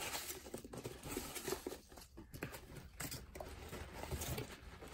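Hands rummaging through foam packing peanuts in a cardboard box: faint, irregular rustling with scattered light knocks as the peanuts are pushed aside and shifted against the cardboard.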